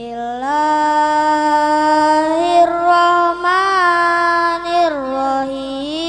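A boy chanting Quran recitation in a long melodic line, holding each note and sliding between pitches: the voice rises early, wavers, dips about five seconds in and climbs again near the end.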